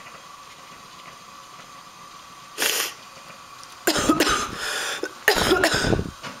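A person with a cold draws a quick sharp breath, then sneezes loudly twice, about a second and a half apart.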